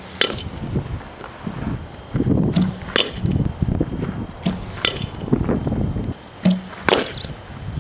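Softball pitching machine throwing a ball about every two seconds, each launch a dull knock followed less than half a second later by the sharp crack of a bat hitting the ball. Under it runs a steady low rumble.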